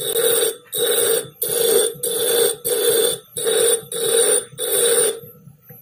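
Bench grinder wheel grinding the hard steel of a Japanese plane blade in about eight short passes, roughly one every two-thirds of a second, over the steady hum of the grinder motor. The passes stop about five seconds in, leaving the motor running. The blade is being shaped to a rounded edge for a scrub plane.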